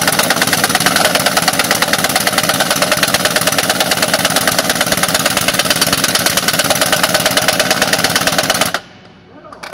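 Pneumatic impact wrench hammering rapidly and continuously while tightening bolts, stopping about nine seconds in, with a brief burst just before the end.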